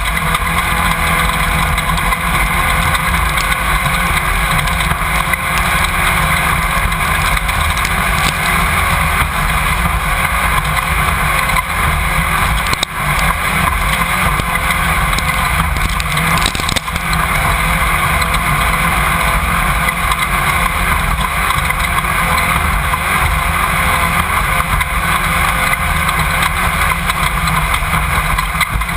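Off-road race car at speed heard from an on-board camera: the engine runs steadily under load, with wind buffeting and chassis rattle mixed in. The sound dips briefly twice, about halfway through.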